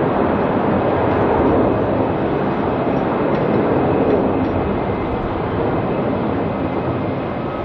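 Jet engine noise of an Airbus A320-232 taking off, its IAE V2500 turbofans at takeoff thrust: a steady, loud rushing rumble with faint whining tones above it.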